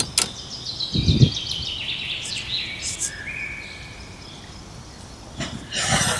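A bird singing a run of notes that step down in pitch over about three seconds. A low thump comes about a second in, and a rustle near the end.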